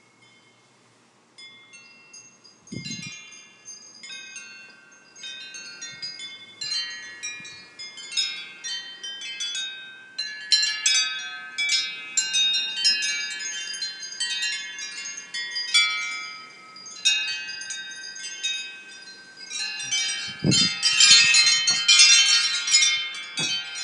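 Wind chimes ringing in gusty wind, many overlapping metal tones, sparse at first and growing busier and louder, densest near the end. Two brief low thumps, about three seconds in and again near the end.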